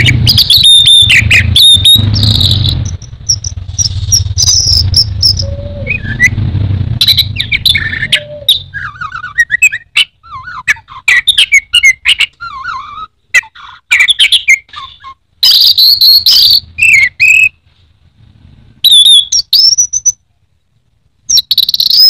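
Orange-headed thrush singing a long, varied run of chirps, whistles and trills, broken by short pauses. A low steady hum underlies the first eight seconds or so, then stops.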